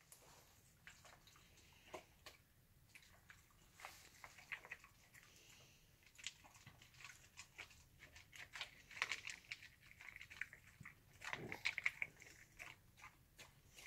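Dog eating from a plastic slow-feeder bowl: faint scattered clicks and crunches of chewing and nosing at the food, sparse at first and coming thicker in two short spells in the second half.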